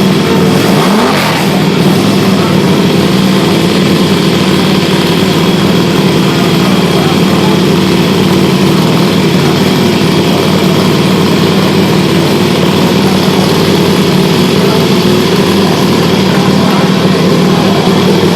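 KTM RC8R's V-twin engine running loud and steady at held revs, with a brief change in pitch at the start.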